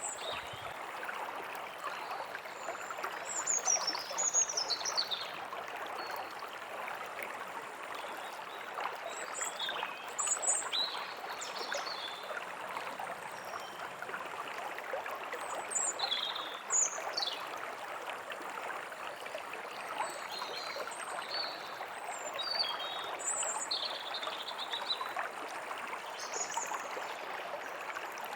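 A stream running steadily with a trickling rush, while small songbirds chirp and call on and off throughout, in short rising and falling high notes.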